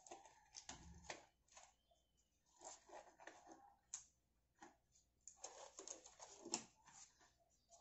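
Faint irregular rustling and crackling of thin rubber examination gloves being stretched and pulled onto the hands, with one sharper, louder crackle near the end.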